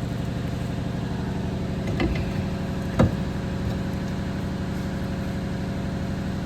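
A machine running with a steady, evenly pulsing hum, plus two sharp metallic knocks about two and three seconds in, the second louder.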